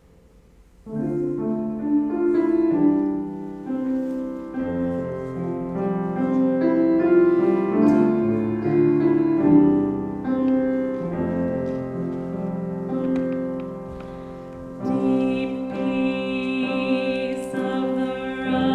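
Piano introduction with slow sustained chords, starting about a second in; near the end a singing voice comes in over the piano.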